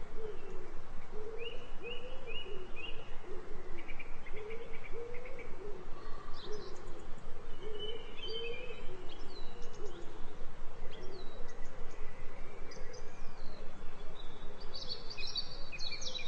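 Wild birdsong: short high chirps and trills from small birds, busiest near the end, over a lower call repeated about twice a second that fades out about halfway through.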